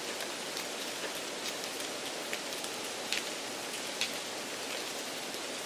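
Steady rain-like hiss with faint scattered ticks. It is a background noise track mixed under a TOEIC listening test recording to imitate poor test-room conditions.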